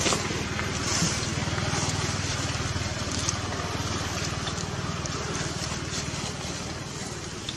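An engine running steadily, a low hum that holds without breaks.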